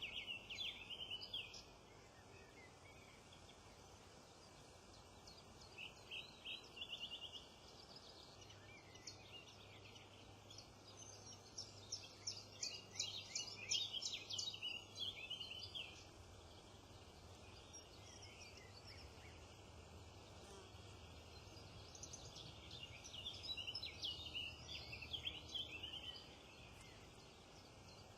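Small wild birds singing and calling in groups of rapid high chirps and trills. The calls are busiest through the middle and pick up again near the end, over a quiet steady background.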